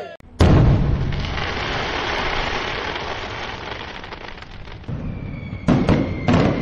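Fireworks sound effect: a sudden loud bang, then a long dense crackling that slowly dies down, and a few sharp cracks near the end.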